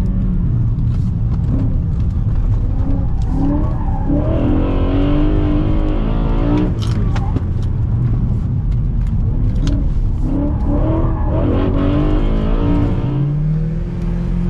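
BMW E92 M3's V8 engine driven hard on track, heard from inside the cabin: the revs climb and drop again and again through gear changes and braking, settling to a steadier lower note near the end.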